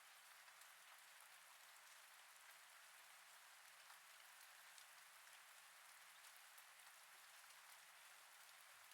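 Faint, steady rain sound effect: an even hiss of rainfall with scattered drop ticks.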